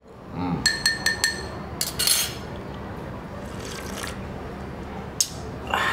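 A teaspoon clinking against a coffee cup as coffee is stirred, four quick ringing clinks, followed by slurping sips of the coffee.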